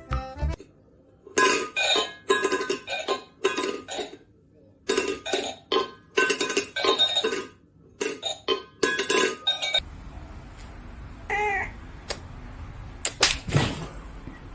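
A run of short, sharp clinking strikes at an uneven pace. Then a cat gives one brief meow that rises and falls, and two or three loud knocks come near the end.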